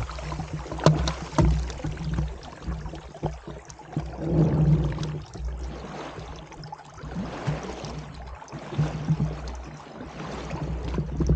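Small outboard-powered inflatable dinghy running up onto a mudflat: a couple of sharp clunks about a second in as the outboard is tilted up, then water splashing and sloshing around the hull over a low rumble.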